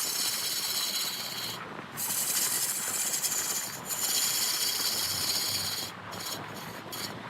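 Wood being worked on a lathe as it spins: a hissing scrape of tool or abrasive against the turning redwood. It comes in long strokes with short breaks about two and four seconds in, and grows quieter and choppier near the end.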